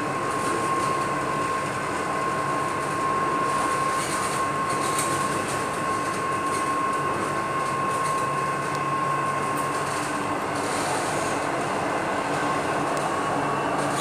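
Cabin noise inside a Chennai Metro train: rail and running rumble under a steady whine from the train's drive. The whine fades about two-thirds of the way through, and a new, rising whine begins near the end as the train starts to accelerate.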